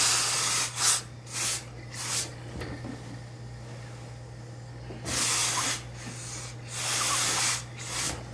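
Steam iron releasing shots of hissing steam while pressing suit trousers: four short spurts in the first two seconds, then two longer hisses about five and seven seconds in and a short one near the end, over a low steady hum.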